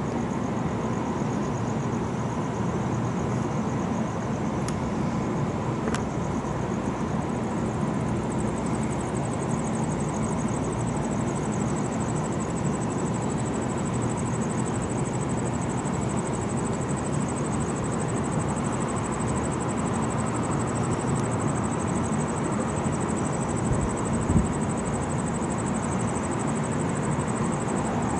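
Steady night-time city background of distant traffic hum, with a faint high, rapidly pulsing buzz above it. There is one brief thump about three-quarters of the way through.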